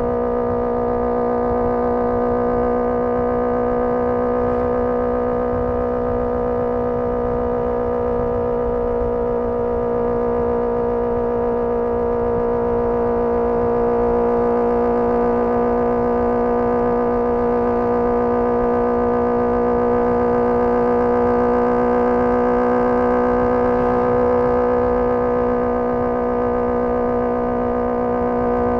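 Honda CBR650R's inline-four engine through a MIVV MK3 carbon exhaust, held at a steady high engine speed while cruising, its note staying almost level throughout.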